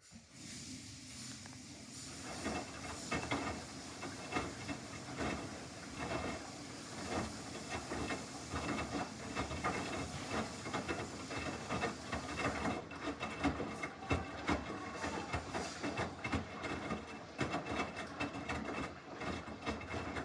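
Samsung washing machine running a normal cycle: a steady watery hiss with irregular splashing in the drum.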